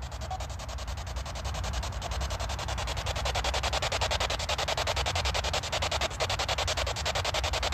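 Ghost-hunting spirit box sweeping through radio stations, played through a small cube speaker: static chopped into a fast, even pulsing many times a second, over a low hum.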